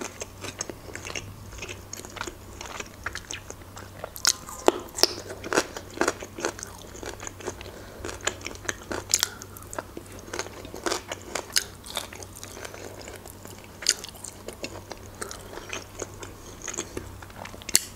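Close-up eating sounds: crunching bites and chewing of cucumber, a scatter of sharp wet clicks and crackles coming in irregular clusters.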